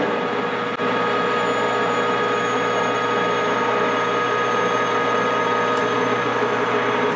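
Metal lathe running under power with its lead screw engaged, a single-point threading tool taking a pass on an M18 x 1.0 thread: a steady machine whine with several held tones, no change in speed.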